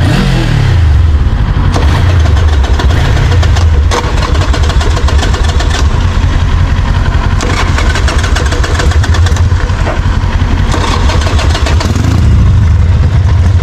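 Kawasaki Ninja 400's parallel-twin engine running after start-up: the revs fall back toward idle in the first second and rise briefly once more near the end, with a few sharp clicks along the way.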